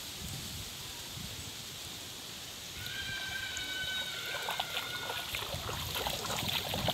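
Gentle water trickling and splashing at the side of a small wooden boat, with small sharp splashes and knocks in the second half. A few high, steady whistling calls sound about three seconds in.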